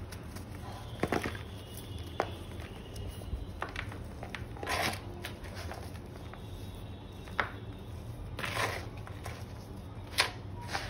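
Lumps of gym chalk crunching and crumbling as bare hands squeeze and break them in a bowl of chalk powder: irregular crunches a second or two apart, several louder than the rest, over a low steady hum.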